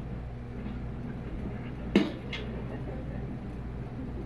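A sharp knock about two seconds in, followed by a lighter click, over a low steady hum.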